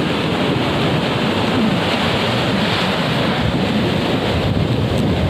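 Heavy surf breaking and washing up the beach in a steady noise, with wind buffeting the microphone in a low rumble. The sea is rough from a low-pressure system.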